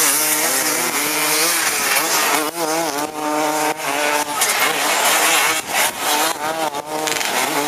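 Several racing engines revving up and down, their pitches rising and falling over one another again and again.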